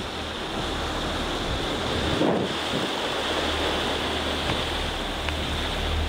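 Wind buffeting the microphone over choppy open sea with waves breaking, and a steady low rumble underneath. A gust swells about two seconds in.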